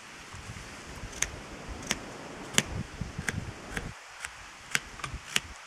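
A kitchen knife cutting into pork-wrapped potatoes on a wooden cutting board. The blade knocks the board in about eight sharp taps at uneven intervals.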